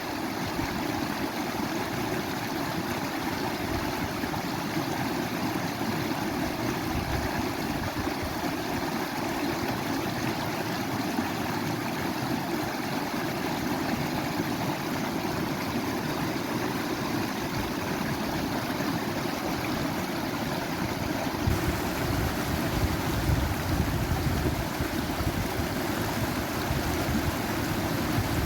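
Running water rushing steadily, like a stream or waterfall. About two-thirds of the way through it changes to a slightly louder, fuller rush.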